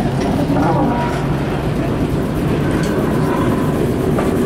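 Locomotive and tender rolling slowly along the track, with a steady low rumble.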